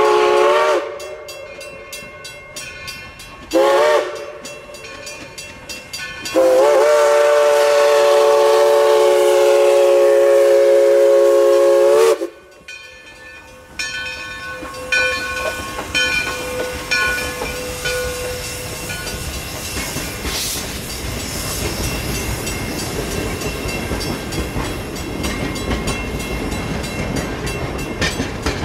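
A steam locomotive's multi-note chime whistle blows: a long blast that ends about a second in, a short toot near four seconds, and another long blast from about six to twelve seconds, each one sliding up in pitch as it starts. After it comes the steady rolling noise of the train passing, with faint high ringing tones.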